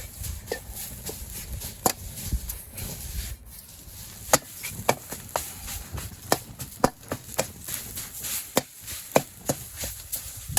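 Irregular sharp knocks of a cooking utensil, sparse at first, then about two a second from about four seconds in, over a faint steady hiss.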